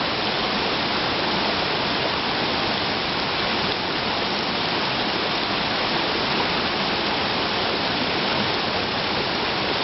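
Mountain stream rushing steadily over rocks, a continuous even hiss of flowing water.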